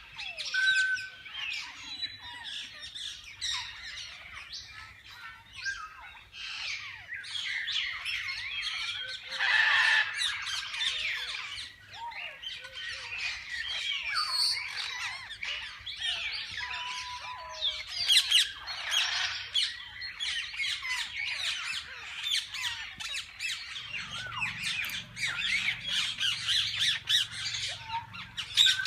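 A flock of parakeets chattering and squawking together, a dense din of many short overlapping calls, louder in a few stretches.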